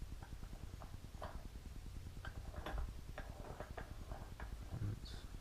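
Light, irregular clicks and taps of a small metal dash-light bulb base being handled and set in a bench vise, about ten small ticks spread over a few seconds.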